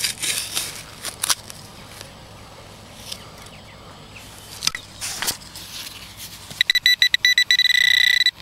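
A digging tool scrapes and chops into soil a few times. Then, about two-thirds of the way in, a metal detecting pinpointer starts beeping: rapid high beeps that run together into a steady tone as it closes on a buried metal object at the bottom of the hole.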